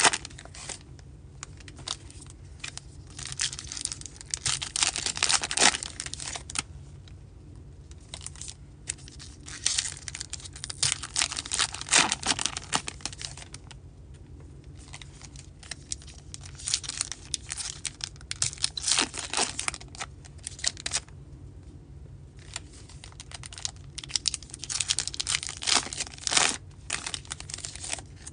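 Foil trading-card pack wrappers crinkling and tearing in several bursts, with the cards being handled and flipped over one by one on the stack in the quieter stretches between.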